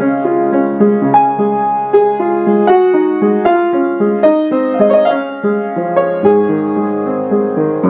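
Background piano music: single notes struck about once a second over held bass notes.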